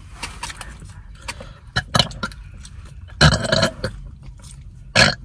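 A person burping: one loud burp lasting about half a second a little past three seconds in, with shorter sharp throat or mouth sounds about two seconds in and near the end.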